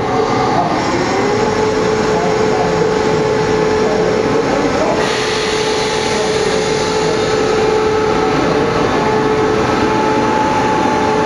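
A train running on the line: a steady whine that rises slightly about a second in and then holds, over a wide running noise, with a hiss that grows stronger about halfway through.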